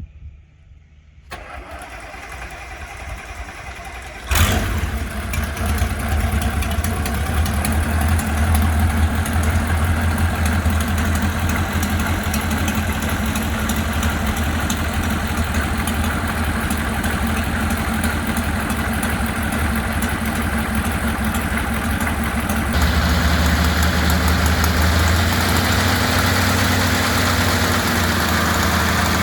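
Rotec R2800 seven-cylinder radial engine starting. After a few seconds of cranking it catches abruptly about four seconds in and settles into a steady idle, which picks up a little near the end.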